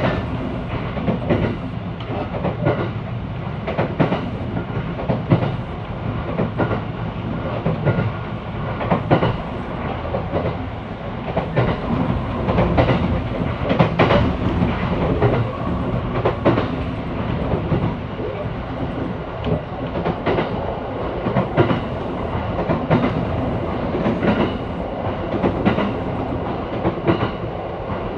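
Train running on the line, heard from inside the carriage: a steady rumble with wheels clicking over the rail joints again and again.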